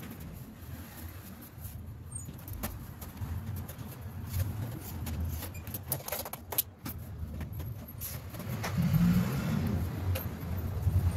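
Plastic back cover of a flat-screen TV being fitted and handled, with scattered clicks and knocks, busier near the end, over a steady low rumble.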